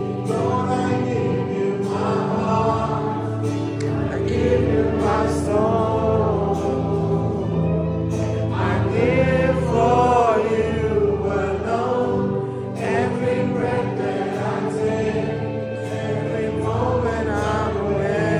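A choir singing gospel music with instrumental accompaniment: voices swelling and wavering over sustained low notes.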